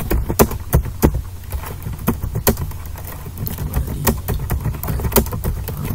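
Typing on a computer keyboard: irregular keystroke clicks, several a second, over a steady low hum.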